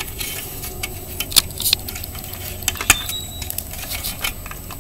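Plastic zip tie being pulled tight by hand around the add-on exhaust pipe of a Razor MX350 dirt bike: irregular sharp clicks and small rattles.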